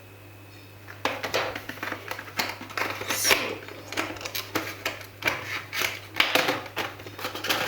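A small cardboard box and its packaging being opened and handled by hand: a quick run of irregular scratching, rustling and clicking that starts about a second in.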